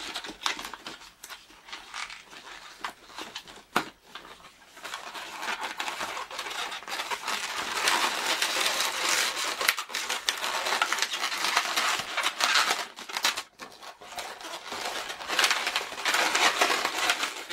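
Latex 260 modelling balloons being twisted, tied and rubbed together by hand: an irregular rubbery rustling with scattered small clicks, growing louder about halfway through.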